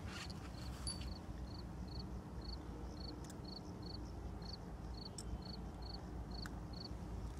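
Cricket chirping steadily, about two to three short high chirps a second, over a low steady rumble.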